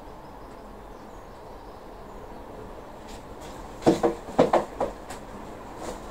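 Things being handled on a potting bench: a quick cluster of knocks and rattles about four seconds in and one small knock near the end, over faint steady background noise.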